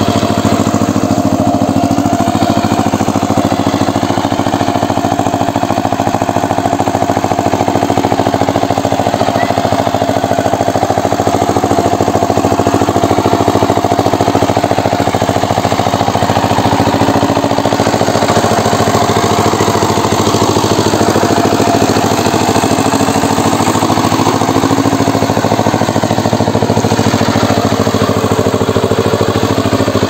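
Single-cylinder diesel engine of a two-wheel power tiller running steadily under load while ploughing a flooded paddy field.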